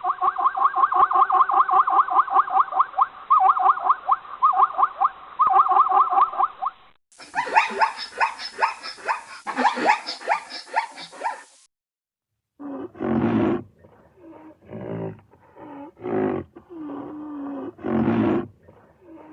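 Three different animal recordings cut together: first a rapid, pulsing call with several steady tones for about seven seconds, then a different rapid pulsing call for about four seconds, then after a short gap a series of deep, separate calls from a big cat.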